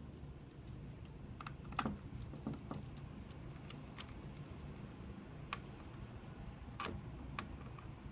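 Light, scattered clicks and taps of small plastic parts and screws being handled and fitted while assembling a Kronos 4500 time clock, about eight in all at irregular intervals, the sharpest just before two seconds in and near seven seconds. A faint low hum lies underneath.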